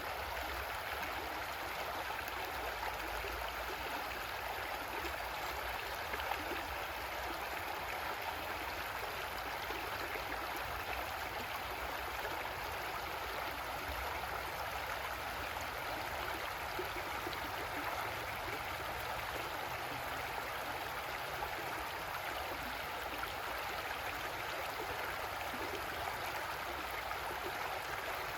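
A creek's water running steadily over rocks, an even rushing and gurgling.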